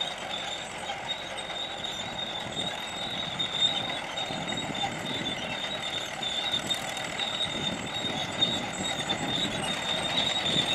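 Piston-engined vintage aircraft flying over during a mock dogfight, their engines a steady, unbroken noise.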